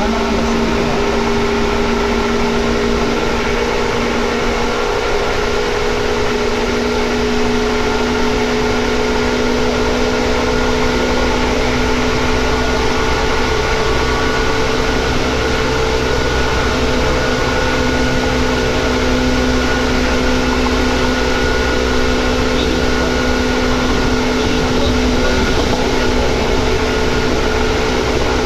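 Seibu 2000 series electric train running on board: a loud, steady whine of the traction motors and gearing, several tones slowly rising in pitch as it gathers speed, over a continuous rumble of wheels on rail.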